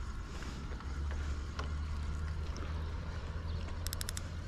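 Steady low rumble of wind buffeting the microphone, with a few faint clicks and a quick run of about five high ticks about four seconds in.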